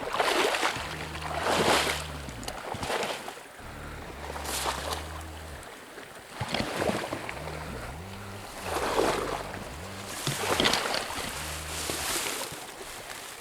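Background music with a low bass line that steps from note to note, over rushing river water with a splashing surge every second or two.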